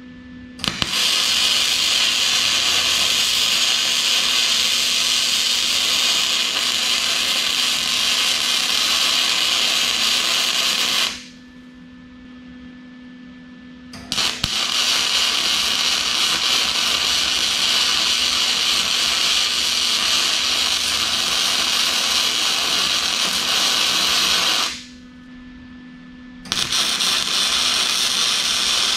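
Electric arc welding steel rake tines onto a steel bar: a steady sizzling hiss in three long beads of about ten seconds each, separated by pauses of a second or two. A steady low hum is left in the pauses.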